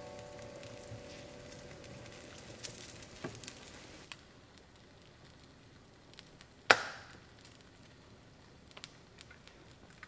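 Ramen simmering in an earthenware pot with faint crackling for the first few seconds. Then, about seven seconds in, one sharp, loud knock of something hard struck on a hard surface.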